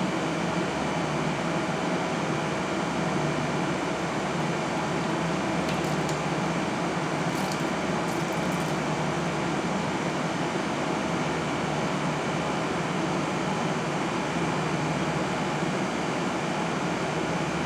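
Steady ventilation noise, like an air conditioner or fan, fills the test room, with faint splashing and trickling around the middle as water pours from a glass beaker onto a running laptop's keyboard.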